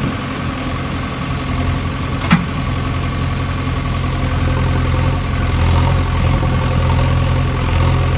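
Vehicle engine idling steadily, a low, even hum, with a single sharp click about two seconds in.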